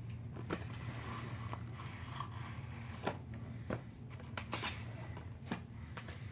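Cardboard product boxes being handled and opened: light scrapes and a few sharp clicks and taps, over a faint steady hum.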